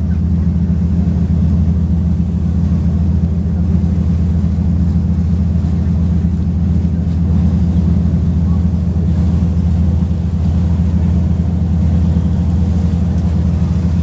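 Boat engine running steadily under way: a loud, even low drone that holds without change.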